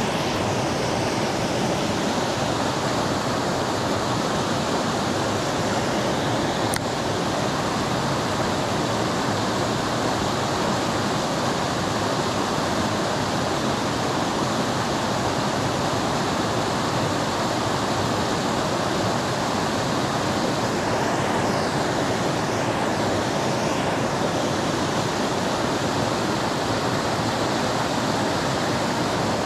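Steady, even rush of creek water running over rocks and a small cascade.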